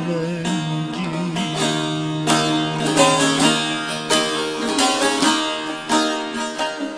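Bağlama (Turkish long-necked saz) playing an instrumental passage of a Turkish folk song, plucked notes in quick succession. A sung note trails off in the first second.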